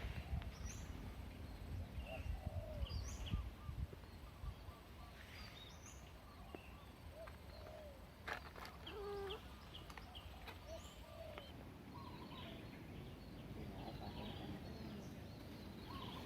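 Scattered faint chirps and short calls from small animals or birds, with a low rumble during the first few seconds.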